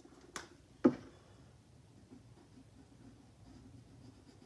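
Pens handled on a wooden desk: a small click, then a sharp knock about a second in. After that comes the faint scratching of a marker drawing on paper.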